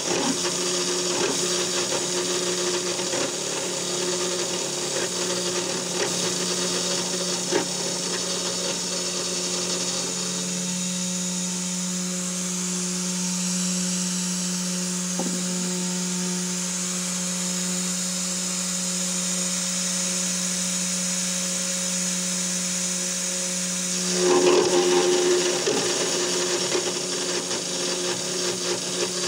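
3018 desktop CNC router milling aluminium: the spindle whines steadily while the end mill cuts with a rough grinding noise. The cutting noise smooths out through the middle, then turns louder and rougher for about two seconds near the end.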